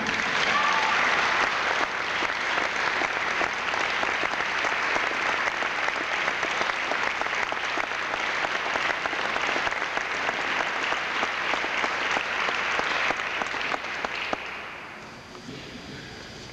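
Audience applauding: a long, steady round of clapping that dies away about fourteen seconds in.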